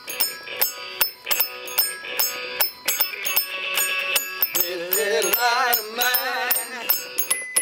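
Blues played by a duo: a steady hand-slapped beat on a plastic box with electric guitar. About four and a half seconds in, a man's voice comes in singing with a wide vibrato.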